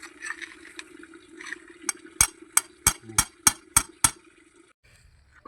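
A run of eight sharp knocks in quick succession, about three a second, over a steady low hum that cuts off near the end.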